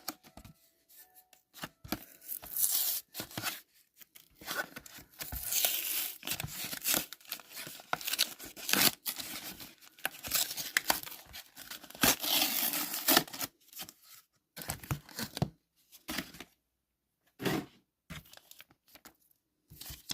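Pokémon TCG card blister pack being torn open by hand: cardboard backing ripping and plastic crinkling in irregular rasping bursts, with sharp clicks and short pauses.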